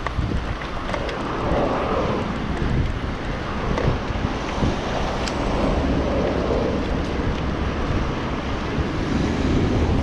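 Wind buffeting the microphone of a moving bicycle, a steady rushing rumble.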